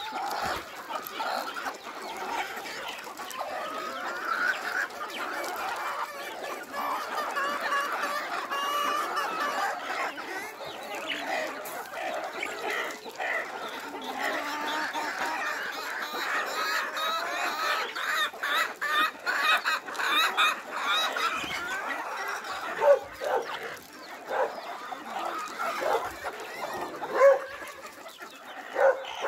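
A flock of hens and roosters clucking and chattering continuously as they crowd in to feed, many calls overlapping. A few sudden louder calls stand out in the second half.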